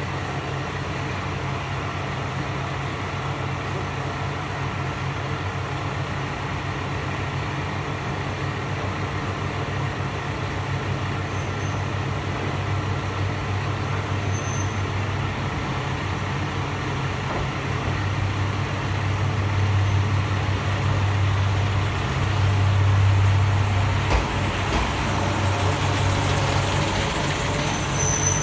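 Kanto Railway Joso Line diesel railcar arriving at the platform: a steady low diesel engine drone that grows louder as the train draws in, loudest in the last few seconds as the cars come alongside.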